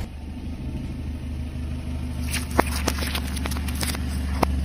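A car rolling slowly with a steady low engine-and-tyre rumble. From about two seconds in, a string of short sharp pops, the loudest about halfway through: mandarins bursting one after another under the tyre.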